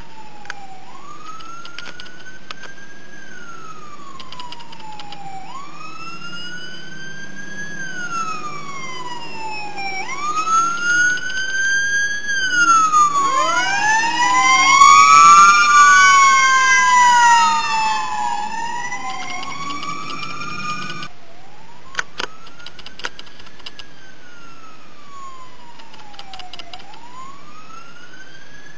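Fire apparatus sirens wailing, each rising and falling over a few seconds, over a low engine and road rumble. Several sirens overlap and grow loudest about halfway through as a fire engine passes, then a single wailing siren carries on after an abrupt cut.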